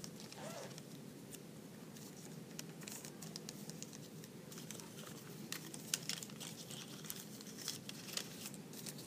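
Pink paper rustling and crinkling in the hands as it is folded and creased into an origami flower petal, with scattered faint crackles of the paper over a steady low room hum.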